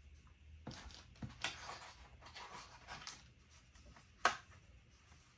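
Thin sheet of printer paper being handled and slid into place on a plastic stamping platform, faint rustling, with one sharp click about four seconds in.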